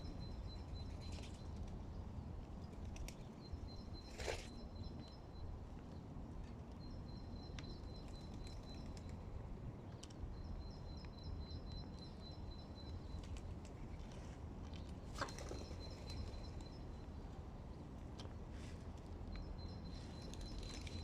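A small bird's high, trilling song phrase, about two seconds long, repeats every few seconds over a steady low background noise. Two short sharp clicks stand out, one about four seconds in and one about fifteen seconds in.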